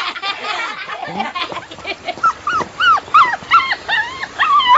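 A dog whimpering in a quick run of short, high yelps, starting about two seconds in and growing louder toward the end.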